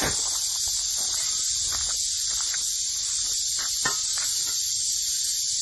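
Steady, high-pitched chorus of insects droning without a break, with a sharp click about four seconds in.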